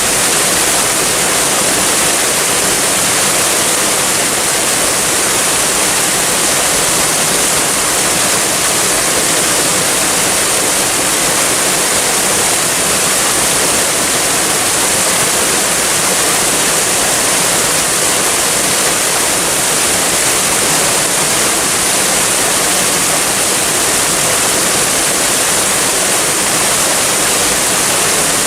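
Waterfall running steadily, an even rush of falling water that does not change, brightest in the high hiss.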